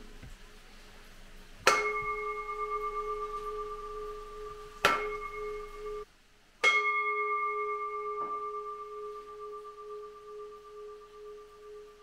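Buddhist bowl bell (rin) struck three times, a few seconds apart; each strike gives a sharp ping that rings on as a steady, slowly fading tone, and the last is left to ring out.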